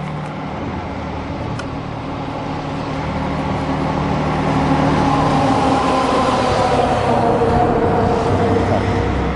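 Car driving, with engine and road noise heard inside the cabin. It grows louder partway through, and a few higher tones come in and slowly fall in pitch.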